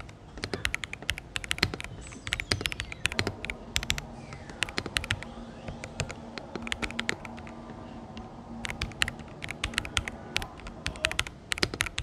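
Fast typing on a Feker IK65 gasket-mount 65% mechanical keyboard with lubed Marble White switches meant to be quiet, over sound-dampening foam: quick runs of keystroke clacks, with fewer strokes about halfway through. The keys are close-miked by a lavalier held just above them.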